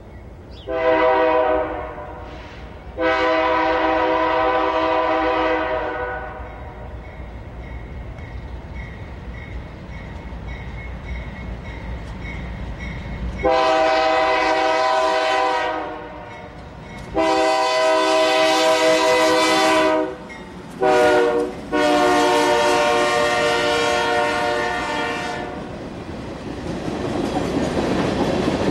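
Diesel freight locomotive's multi-chime air horn blowing for a grade crossing: a short blast and a long one, then the standard long, long, short, long crossing signal. Near the end the train's rumble rises as it passes close by.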